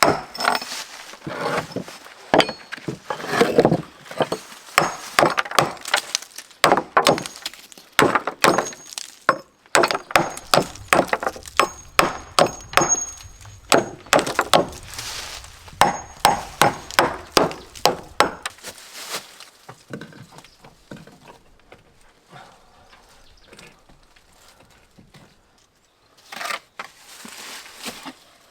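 A hammer striking in rapid, uneven blows, two or three a second, some with a light metallic clink, for the first eighteen seconds or so, then only a few scattered knocks near the end.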